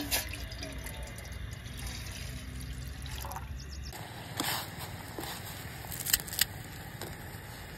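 Water pouring and trickling into a stainless steel pot. About four seconds in, this gives way to dry instant noodle blocks being snapped by hand over the pot, with a few sharp crackles.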